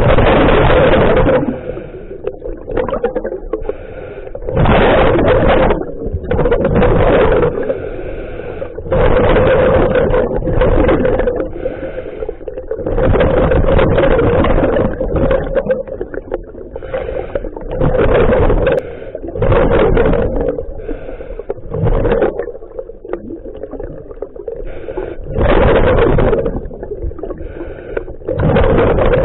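Scuba diver breathing through a regulator underwater: loud rushing bursts of breath and bubbles every two seconds or so, quieter between them, over a steady hum.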